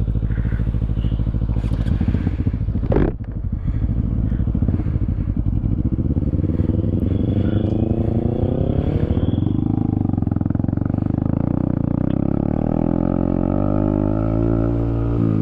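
Motorcycle engine pulling away under way. There is a brief sharp break and dip in the engine note about three seconds in, then it revs up with rising pitch, drops at a gear change about halfway through, and climbs again in the next gear.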